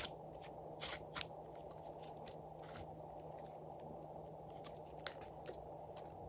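Slime being squeezed and pinched by hand, giving sharp crackling clicks, several in the first second or so and only a few scattered ones after.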